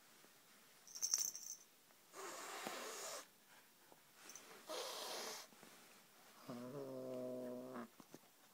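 Siamese kitten hissing twice, then giving one steady low growl near the end, guarding its plush toy snake and refusing to give it up. A brief rattle about a second in.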